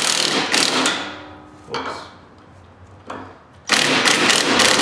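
Cordless impact driver hammering as it runs down a leaf-spring mounting bolt: it runs for about a second, stops, gives two short bursts, then hammers again through the last second.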